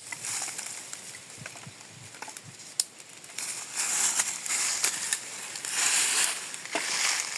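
Irregular crunching and rustling, like dry leaves and twigs being stepped on or handled, with a few sharp snaps.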